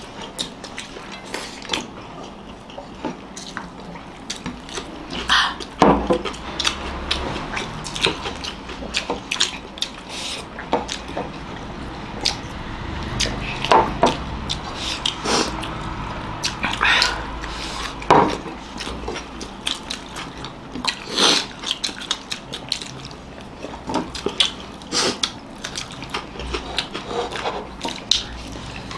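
People eating egg biryani fast with their hands: wet chewing and lip-smacking in many irregular short clicks, with now and then a clink of plate or dish.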